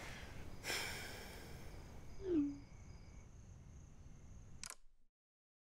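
Phone sound effects for an incoming text message: a short rush of noise about a second in, then a quick falling tone that settles low and is the loudest sound, and a click near the end before the sound cuts to silence.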